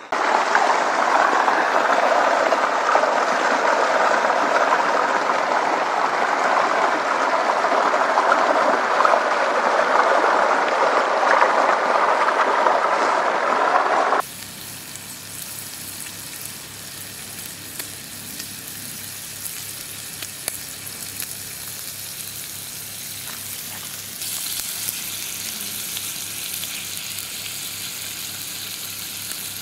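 Rushing water of a mountain stream, a steady loud hiss. About halfway through it cuts suddenly to a quieter, thinner rush of water with a faint low hum under it.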